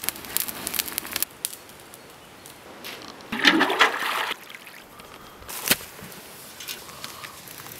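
Cooking pot plunged into a shallow river, water gurgling in as it fills for about a second. At the start a small twig fire crackles.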